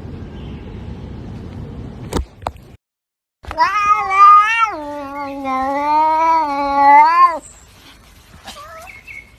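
A domestic cat's single long, drawn-out meow of about four seconds, its pitch dropping partway through. A sharp click comes shortly before it.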